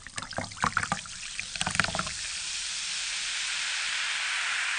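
Cola poured over ice into a glass, splashing with crackling pops, then about two seconds in settling into a steady fizzing hiss of carbonation.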